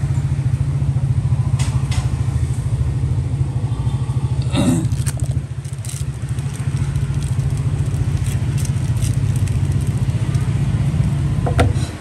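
A steady low motor rumble with a fine, even pulse, like an engine running at idle. A few sharp clicks sound about four and a half seconds in and again near the end.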